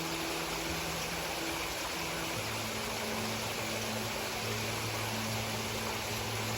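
Running water of a small stream, a steady rushing hiss. Beneath it is a faint low hum whose pitch drops about two seconds in.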